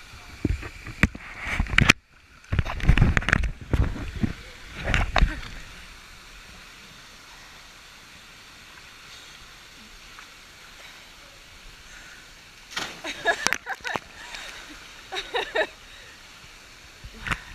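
Waterfall stream rushing steadily, broken by loud irregular bursts of splashing in the first five seconds and again about 13 to 16 seconds in.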